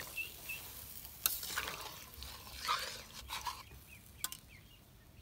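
Metal spatula stirring a simmering chicken curry in a metal karahi, scraping and swishing through the sauce with a few sharp clinks against the pan, the sharpest about a second in.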